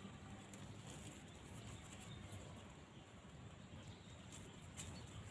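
Near silence: faint background hiss, with a faint click near the end.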